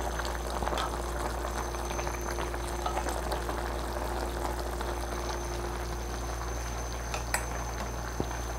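Chicken and daikon simmering in soy-seasoned broth in a pan on a portable gas burner: a steady crackling bubble, stirred with chopsticks, with a couple of light clicks of utensils near the end.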